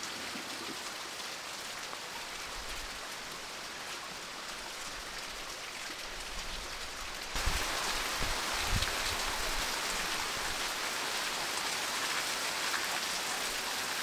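Steady rain falling outdoors: an even patter with no distinct events, which gets louder about seven seconds in.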